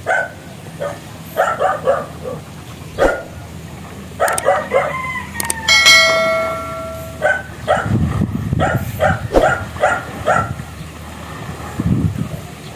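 A dog barking repeatedly in quick clusters of three or four barks. A bell-like ring, the loudest sound, sounds once a little before the middle and fades over about a second and a half.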